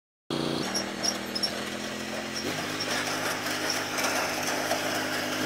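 John Deere L130 lawn tractor's engine running steadily as it drives along, with its note changing about halfway through.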